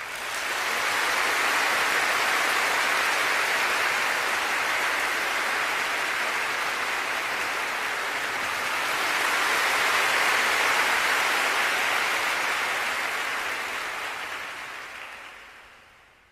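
Audience applauding, greeting a pianist as he comes on stage. It builds at once, swells again about two thirds of the way through, then dies away near the end.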